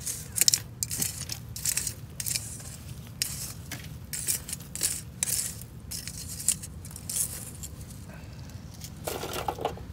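Metal tongs scraping and clinking through cold ash and leftover charcoal in a steel fire ring: a run of short, irregular scrapes and clinks.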